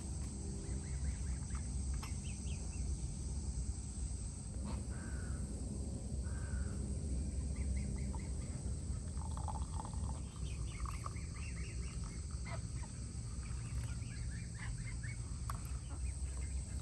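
Outdoor birds calling, with scattered short chirps and two longer caw-like calls about a second apart near the middle, over a steady low rumble and a few sharp clicks.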